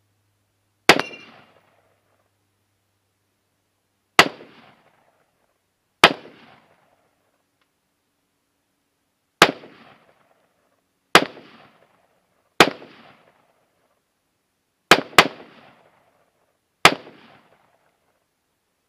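AR-15 rifle firing nine single shots at uneven intervals, two of them in quick succession about three-quarters of the way through. Each shot is a sharp crack with a short echoing tail.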